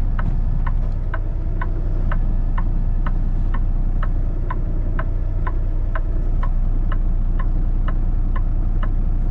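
A semi truck's turn-signal flasher ticking steadily about twice a second inside the cab, over the low, steady hum of the truck's diesel engine running.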